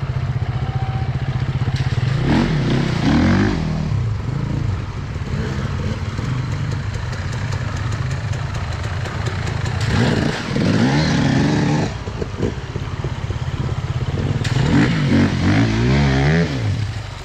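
Enduro motorcycle engines running, revved up and down in three bursts about two, ten and fifteen seconds in as bikes take a bank and a stream crossing, over a steady engine drone. Water splashing joins the last burst.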